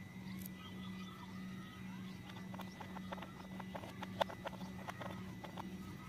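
Hard plastic toy parts clicking and knocking as plastic wheels are handled and fitted onto a toy train body: a string of short clicks with one louder knock about four seconds in, over a steady low hum.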